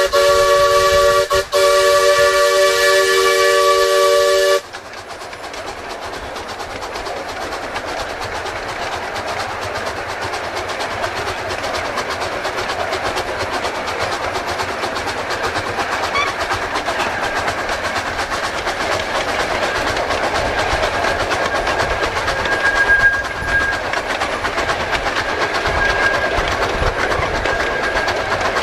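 Miniature live-steam locomotive's multi-tone chime whistle blowing, dipping briefly about a second and a half in and cutting off about four and a half seconds in. After it, the train runs steadily along the 15-inch gauge track with a rumble and rattle, and a faint thin squeal comes in near the end.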